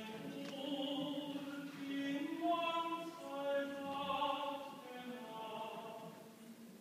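A live male singer on stage singing in an operatic style, holding long notes that step from pitch to pitch, heard from far back in a large hall.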